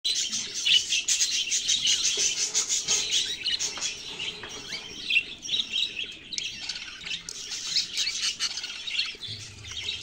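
A brood of budgerigar nestlings chirping: a dense, continuous stream of quick, high chirps, loudest in the first few seconds.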